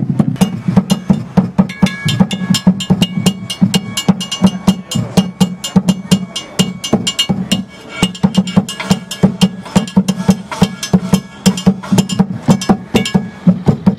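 Fast, uneven percussion of sticks striking car tires and other struck objects, several hits a second, some of them ringing on, over a steady low hum.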